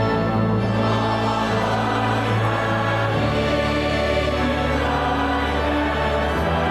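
Choir singing a hymn over sustained accompaniment, with the low bass note changing about three seconds in.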